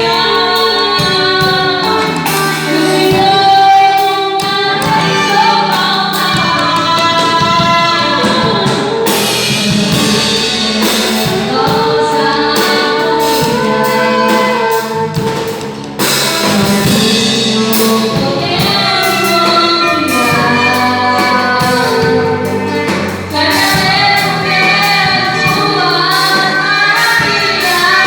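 A live band rehearsing a gospel-style song, with singers carrying the melody over drums and instruments.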